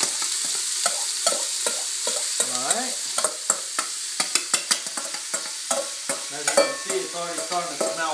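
Onion sizzling as it goes into hot sunflower oil in a stainless steel stockpot, a steady hiss. Over it come many sharp clicks and scrapes of a metal spoon knocking the onion out of a stainless mixing bowl.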